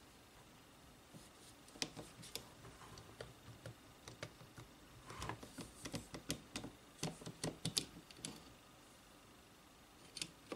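Light clicks and knocks of a Power Action CJS-20 jigsaw's metal base plate being slid and tilted against the tool body by hand, with a quick run of clicks between about five and eight seconds in.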